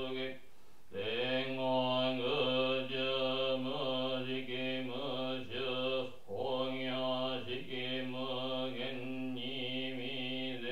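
A Buddhist priest chanting a sutra in a low, steady monotone, holding mostly one note in long phrases and pausing briefly for breath about half a second in and again about six seconds in.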